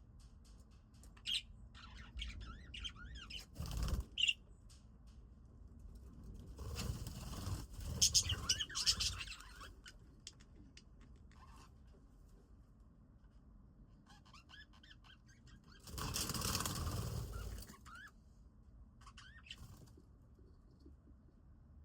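Budgies chirping in short, scattered calls, with two loud spells of wing flapping: one about seven seconds in lasting about three seconds, and a shorter one about sixteen seconds in.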